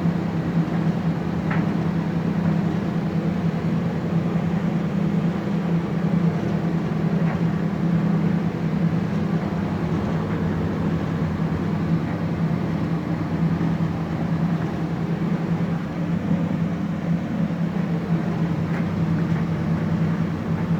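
Maytag clothes dryer running on its newly fitted drum belt: a steady hum from the motor and turning drum, with a few faint ticks.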